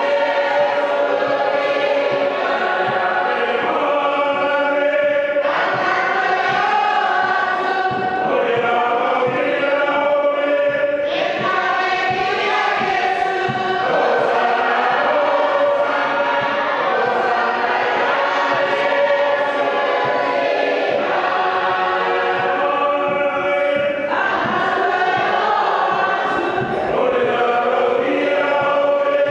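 Church congregation singing a hymn together, many voices holding long notes in phrases that change every few seconds.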